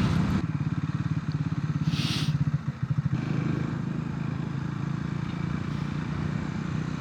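Triumph Scrambler 400 X's single-cylinder engine running on the road, a rapid, even pulsing of firing strokes, with a brief hiss about two seconds in.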